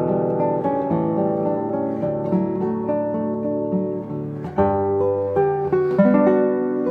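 Solo nylon-string classical guitar, fingerpicked, playing a melody over sustained chords. A louder chord is struck about four and a half seconds in.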